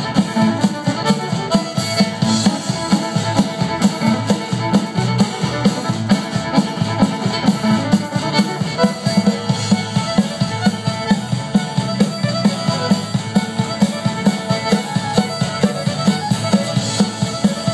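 Live band playing upbeat dance music through a stage PA: a drum kit keeps a steady quick beat of about two to three strokes a second under a lead melody instrument.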